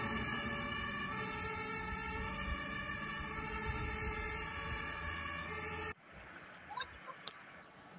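German fire engine's two-tone siren (Martinshorn), alternating between two pitches about every second and slowly fading as the truck drives away. It cuts off abruptly about six seconds in, leaving quieter outdoor background with a few faint knocks.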